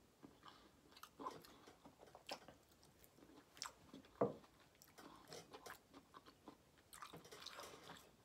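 Faint mouth sounds of a person chewing a mouthful of potato salad: soft, scattered smacks and clicks, with one sharper click about four seconds in.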